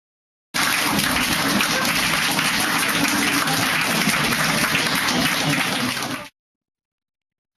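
Classroom crowd applauding, with voices mixed in; it starts abruptly about half a second in and cuts off suddenly near the end.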